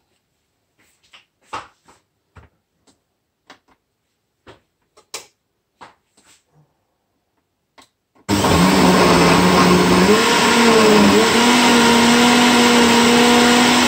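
Countertop blender blending fruit and milk into a smoothie. A few light clicks and knocks come first, then about eight seconds in the motor starts abruptly and runs loudly, its whine stepping up in pitch partway through.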